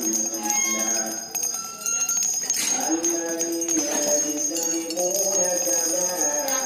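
Background music: a melody over a steady high jingling.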